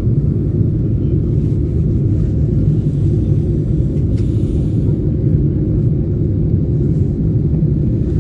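Steady low rumble of a Boeing 747-8's cabin, engine and airflow noise heard from a passenger seat.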